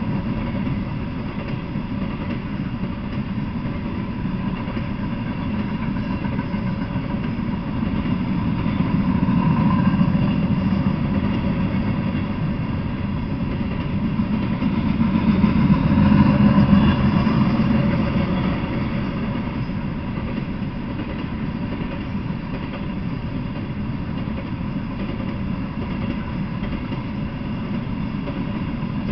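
Freight train of open-top coal cars rolling past, a steady rumble of wheels on the rails. It swells louder twice, around ten seconds in and again around sixteen seconds.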